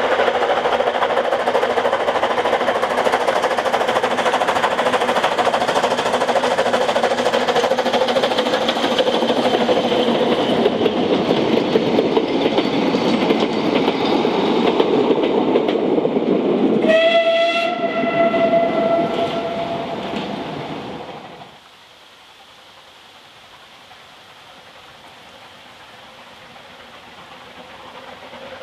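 Narrow-gauge steam train passing: the locomotive working and the carriages rattling by, with a few steady ringing tones above the rumble. About 17 s in, a steam whistle blows for about three seconds. The sound then drops abruptly to a faint, slowly growing rumble of another steam train approaching in the distance.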